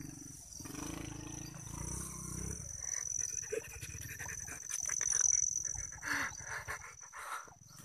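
Small underbone motorcycle engine revving hard as the bike labours through deep mud, its exhaust note breaking into fast, uneven pulses. A steady high whine runs underneath.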